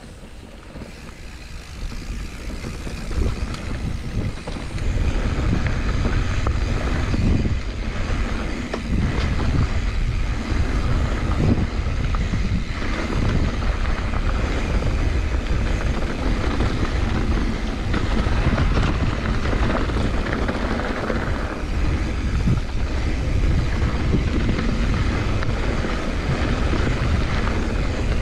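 Mountain bike descending fast on a dry dirt trail: knobby tyres rolling over dirt and the bike rattling over bumps, under heavy wind rumble on the microphone. It gets louder over the first five seconds as speed builds, then holds steady.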